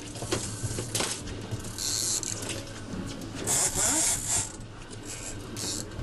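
Fishing reel ratcheting in short bursts as a fish is wound in, over a steady low hum.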